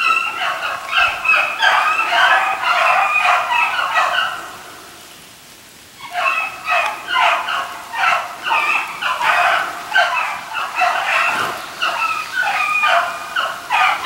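Hunting hounds baying as they run a hare's track, the calls overlapping and continuous, with a lull of about a second and a half partway through before the baying picks up again.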